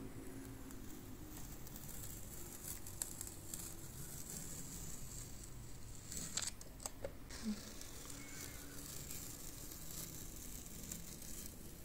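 Masking tape being peeled off the edge of paper: a faint, crackly tearing, with a few sharper clicks a little past halfway.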